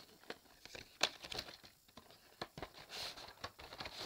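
Irregular crinkling, rustling and sharp clicks of something being handled, like paper or plastic packaging, with louder clicks about a second in and near the end.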